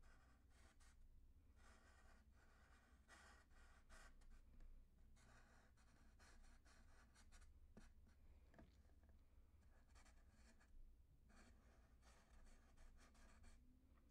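Faint scratching of a thick black Sharpie marker drawing on paper, in runs of short strokes with brief pauses.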